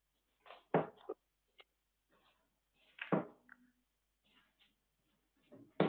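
Steel-tip darts thudding into a sisal dartboard: three sharp thuds about two and a half seconds apart, with fainter knocks between.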